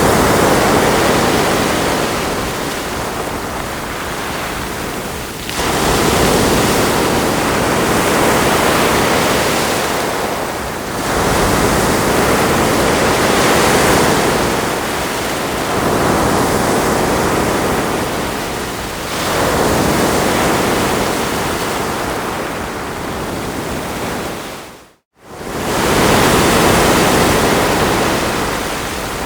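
Ocean surf: waves breaking and washing up the shore in slow swells, each surge rising and fading over several seconds. Late on, the sound drops out abruptly for a split second, then returns.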